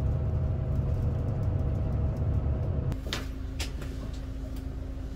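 Low rumble of a moving vehicle heard from inside, cutting off about three seconds in to a quieter steady hum with a few sharp clicks.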